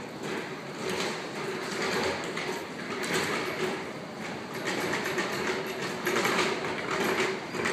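Busy pedestrian street ambience: a steady, noisy wash of passers-by and city bustle, rising and falling in loudness, with no single clear source.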